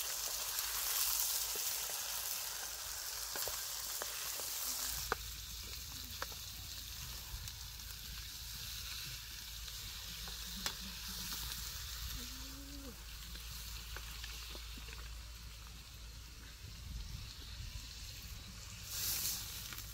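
Duck and vegetables sizzling in a hot wok over a wood fire, stirred with a wooden spatula that gives a few sharp knocks on the pan. The sizzle is loudest for about the first five seconds, then drops to a quieter frying hiss.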